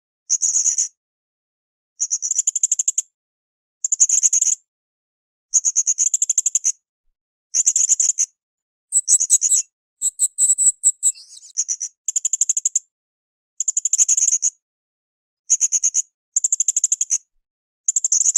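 Blue-crowned hanging parrot (srindit) giving high, shrill trilled calls, each well under a second long, repeated about every one and a half to two seconds. Around the middle comes a longer, more varied chattering burst.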